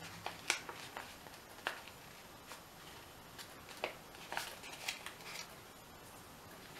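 Folded paper star handled in the hands, its stiff paper crackling and rustling in scattered short bursts, the sharpest about half a second in and again around four to five seconds in.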